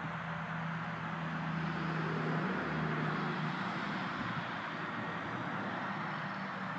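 WLToys V911 micro RC helicopter flying at a distance: a steady low hum that weakens and breaks up about two and a half seconds in as its battery runs flat, over an even outdoor hiss.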